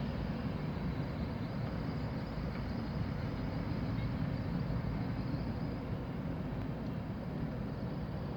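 Steady low rumble of blizzard wind on the microphone, mixed with the noise of street traffic.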